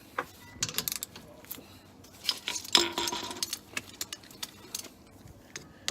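Irregular metallic clicks and clinks of hand tools and brake hardware being worked while taking apart a rear disc brake, the loudest clink about three seconds in.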